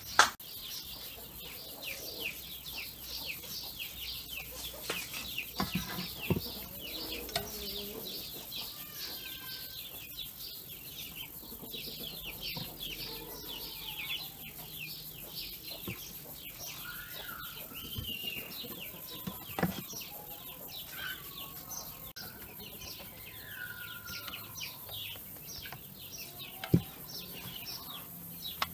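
Small birds chirping steadily in short, quick falling notes, several a second, with a few lower drawn-out calls now and then. A couple of sharp knocks cut through, one at the very start and one near the end.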